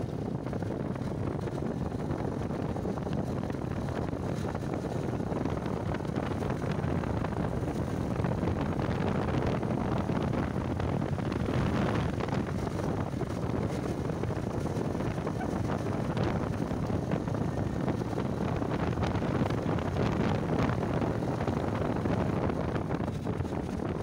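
Wind rushing over the microphone of a moving Bajaj motorcycle, over the steady running noise of the bike.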